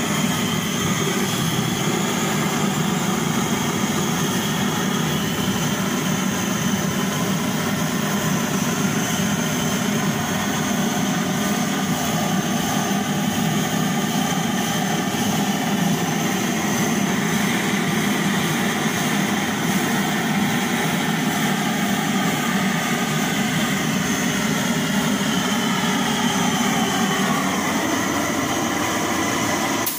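Pressurized copper-tank blowtorch burning with a steady roar as its flame singes the hair off a slaughtered goat's carcass.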